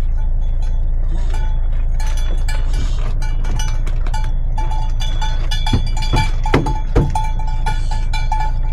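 Bells on grazing cattle clanking and ringing irregularly as the cows move, with a few louder clanks about six to seven seconds in, over a steady low rumble.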